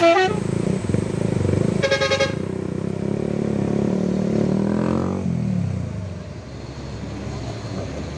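Engines of a pickup and buses running, with a short falling tone at the very start and a vehicle horn sounding briefly about two seconds in. An engine note rises and then falls away around five seconds in.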